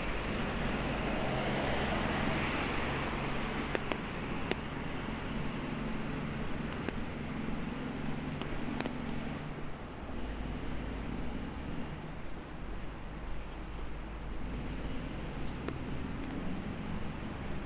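City traffic on a rain-wet avenue: tyres hiss on the wet road over a steady low rumble, swelling as a car passes in the first few seconds. A few short sharp ticks are scattered through.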